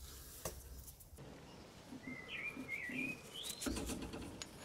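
A bird chirping a few short, quick rising and falling chirps in the second half, with light clicks and a dull knock of steel tool pieces being handled.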